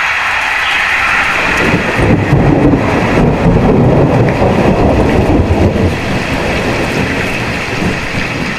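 Heavy rain with strong gusting wind, the wind buffeting the microphone as a loud, uneven low rumble that builds about a second in over a steady hiss of rain.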